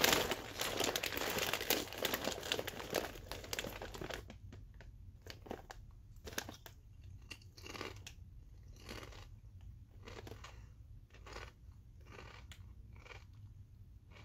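Cape Cod kettle-cooked potato chips being eaten: a bag crinkling and chips crunching in a dense crackle for the first four seconds, then separate crisp chewing crunches roughly once a second.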